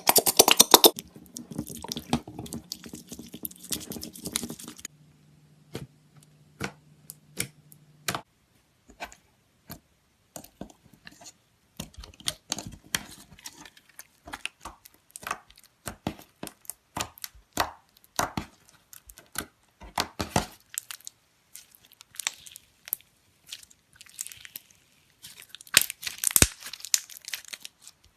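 Slime being handled: crackling, popping and squelching clicks. They come densely for about five seconds, then as scattered pops, and thicken again near the end.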